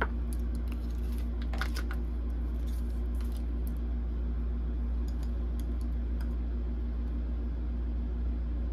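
Steady low hum of room noise, with a few soft clicks and rustles of tarot cards being handled, clustered about one and a half to two seconds in.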